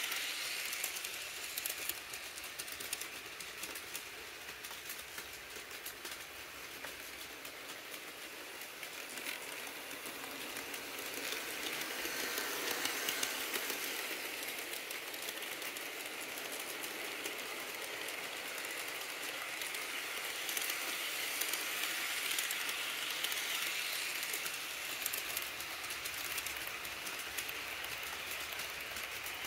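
HO scale model trains rolling past close by on their tracks: a steady fine clatter of wheels running over the rails, getting louder about halfway through and again near the end.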